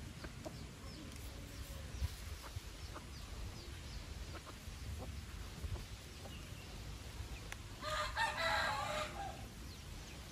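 Chickens in a yard: faint scattered clucks and short calls, then a rooster crows once, loudly, for about a second near the end.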